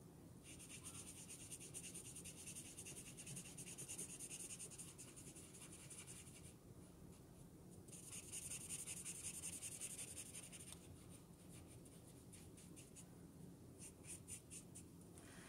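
Faint scratching of an alcohol-based brush marker tip stroked over marker paper while colouring in a shape: two long spells of steady strokes with a short pause between, then quicker separate strokes near the end.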